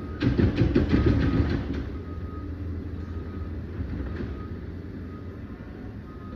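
Liebherr 744 crawler dozer's diesel engine running under load, with a loud burst of clanking and scraping in the first two seconds. A backup alarm beeps about once a second throughout.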